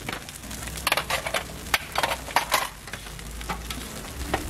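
Sorghum hotteok frying in oil on a flat griddle. Over it, a quick series of sharp metal clinks and scrapes comes from utensils and stainless steel lids being handled on the griddle, mostly in the first half.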